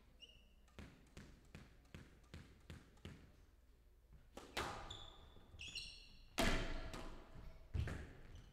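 Squash ball bounced repeatedly on the court before a serve, about three light knocks a second, then the serve and rally: sharp racket hits and the ball striking the walls, with shoes squeaking on the court floor. The loudest hit comes past the middle.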